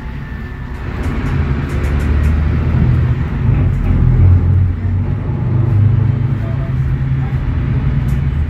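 Mercedes-Benz OM936LA Bluetec 6 six-cylinder diesel engine of an O500U city bus, heard from inside the cabin while the bus drives along. It grows louder about a second in and holds there, with faint clicks over the top.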